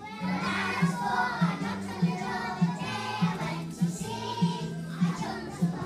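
A group of young children singing together over backing music with a steady beat, a little under two beats a second.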